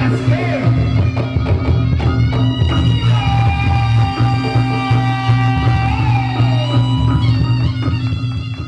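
Music accompanying a Reog Ponorogo performance: a long held melody line over a steady low drone, with percussion strokes throughout.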